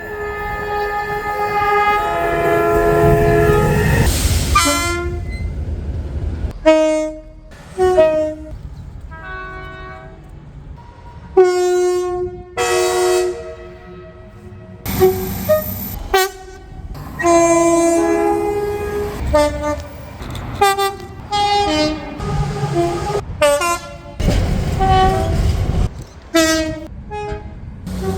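A series of British train horn soundings, many of them two-tone horns stepping between a high and a low note, some long and some short toots, cut abruptly from one train to the next. A loud train rumble runs under the first few seconds and again near the end.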